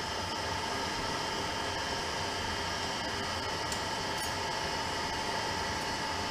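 Steady mechanical hum of a motor or fan running, with a constant high whine over it and two faint light ticks a little past the middle.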